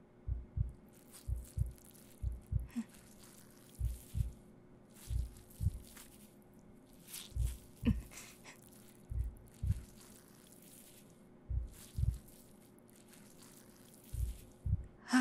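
Heartbeat sound effect: muffled lub-dub double thumps that slow steadily, the gaps between beats growing from about one second to over two, as the heart is being cut out. Faint hissing, scraping noises fall between the beats.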